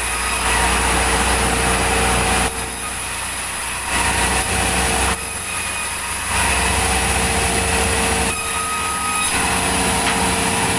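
Sawmill saw machinery running steadily while cutting logs, with a constant hum and a steady tone. Its level drops and returns abruptly three times.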